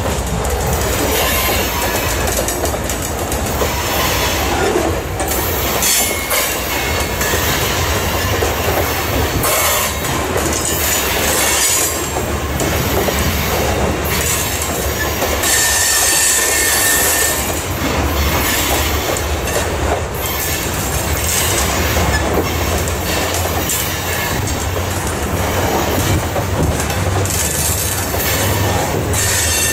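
Grain hopper cars of a freight train rolling steadily past, with wheels rumbling and clacking over the rail joints. A brief high wheel squeal comes about halfway through.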